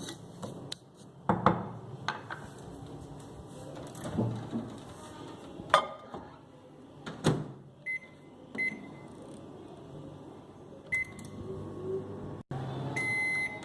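Microwave oven being loaded and started: several clicks and knocks of the door and a bowl being handled, then short keypad beeps about eight and eleven seconds in. Near the end a louder steady hum comes in, with a beep.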